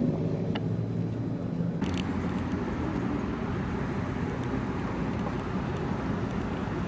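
A car engine running, a steady low drone with a brief sharper noise about two seconds in.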